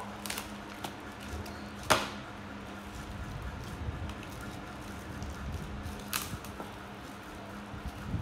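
A small plastic snack packet being handled and picked open: a few sharp crinkling clicks, the loudest about two seconds in and another near six seconds, over a faint steady hum.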